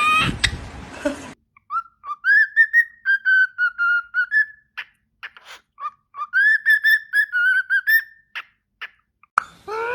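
A parrot whistling a tune in clear, pure notes: two phrases of a few seconds each, with a pause and a few short clicks between them.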